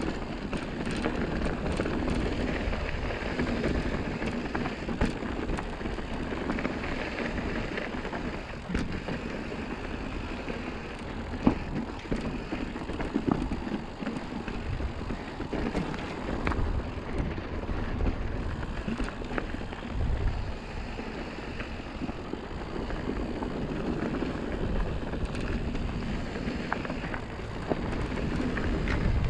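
Mountain bike riding fast down dusty, rocky singletrack: the steady crunch and rumble of tyres on loose dirt, with the bike rattling and sharp knocks now and then as it hits rocks, the loudest a little before the middle.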